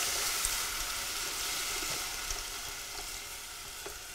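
Chicken broth pouring from a carton into a hot stainless saucepan of sautéed onion, shiitake mushrooms and bok choy, sizzling. The hiss slowly dies down as more broth goes in.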